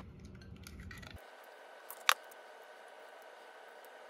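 An egg cracked against the rim of a glass bowl: one sharp tap about two seconds in, with a fainter tick just before it, over low room tone.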